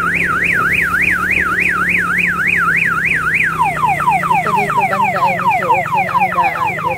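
Electronic alarm siren in the car-alarm style: a fast up-and-down warble about four times a second, switching about halfway through to a run of quick falling sweeps. A motor scooter's engine drones steadily underneath.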